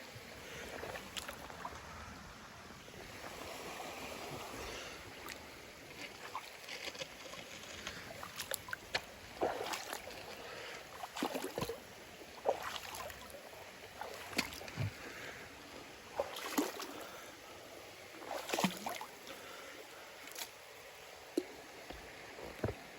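Bare feet wading through a shallow river, water splashing and sloshing at each step every second or two over the steady rush of the stream.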